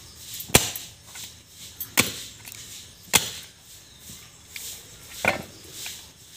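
A large broad-bladed knife chopping a big fish head on a wooden log block. There are four sharp chops, spaced unevenly a second or two apart, with the blade striking through into the wood.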